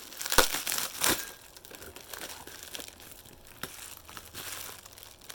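Packing paper being crinkled and torn by hand as a gift is unwrapped, loudest in the first second or so, then lighter, scattered rustles.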